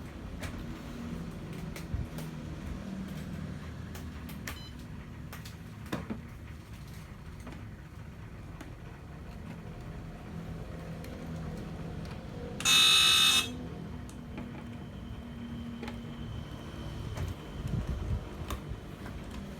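A 1/12-scale radio-controlled 6×6 MRAP model truck with a low, steady rumble and scattered small clicks. About 13 seconds in comes a loud electronic buzzer tone of under a second.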